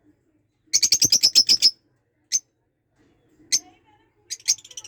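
A small cage bird chirping: a fast run of about ten sharp, high chirps about a second in, then single chirps spaced a second or so apart, and more chirps starting near the end.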